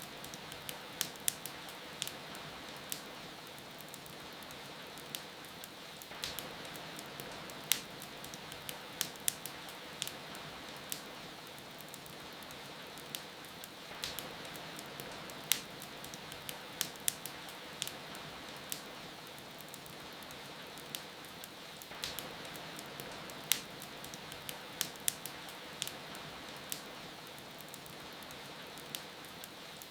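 Wood fire in a fireplace crackling, with sharp pops at irregular moments, over a steady hiss of falling rain.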